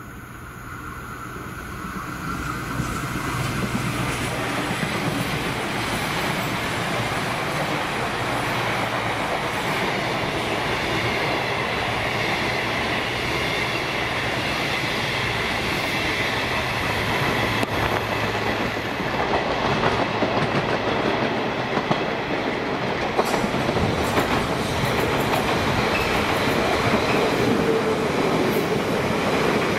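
A CrossCountry Voyager diesel multiple unit runs through at speed, a loud steady rumble of engines and wheels clattering over the rail joints. Near the end a South Western Railway Class 450 electric unit comes past on the near track, adding a steady whine.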